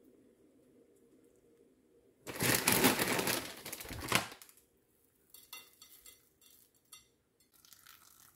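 A loud crackling rustle for about two seconds, then a few light scattered ticks as crispy fried shallots are sprinkled over a bowl of meatballs and greens.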